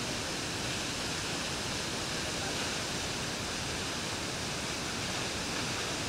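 A tall waterfall plunging into its pool: a steady, unbroken rush of falling water.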